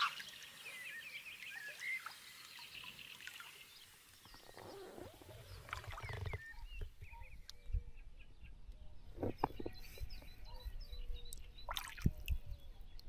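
Quiet lakeside birdsong with water splashing and dripping now and then, and a few brief louder splashes or knocks.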